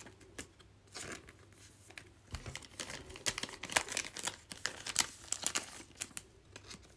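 Thin plastic penny sleeves crinkling and crackling as trading cards are slid into them: a quick, irregular run of small crackles, busiest in the second half.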